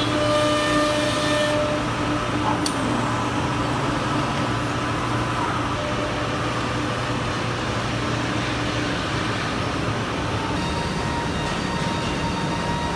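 Homag BOF 311 flat-table CNC machining centre running: a steady mechanical drone with several steady tones through it. A high hiss cuts off about a second and a half in, and a single sharp click comes about a second later.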